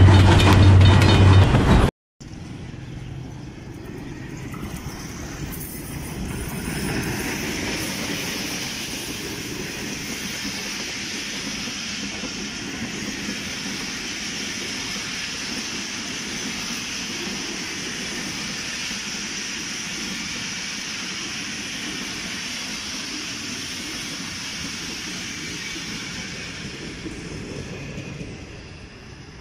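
Pakistan Express passenger coaches rolling past close by: a steady rolling noise of wheels on rail with a high hiss. It builds over the first few seconds and fades near the end. Before that, a loud opening sound cuts off abruptly about two seconds in.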